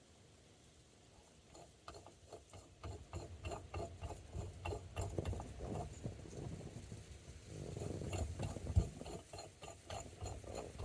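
Hand tools and steering wheel puller parts clicking and rubbing as the puller is fitted, a run of small metallic clicks with one sharper click near the end.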